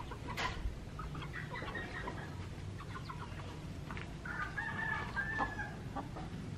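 Young ayam kampung (Indonesian native village chickens) clucking softly while foraging. About four seconds in comes a high, drawn-out crow-like call that lasts about a second.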